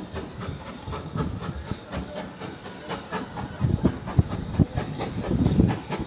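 Steam locomotive approaching under steam: exhaust beats and hiss with wheels knocking over the rail joints, growing louder in the second half.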